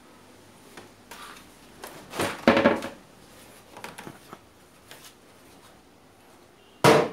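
Hard plastic rear cabinet of a 21-inch LG CRT television being pulled off and handled: scraping and knocking of the plastic shell, loudest about two and a half seconds in, with a few light knocks and a sharp knock at the very end.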